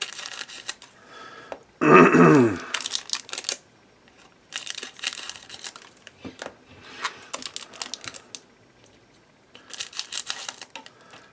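Scissors snipping through the wrappers of trading card packs, with crinkling of the wrappers in several short bursts; the scissors are dull. About two seconds in there is a short, loud vocal sound that falls in pitch.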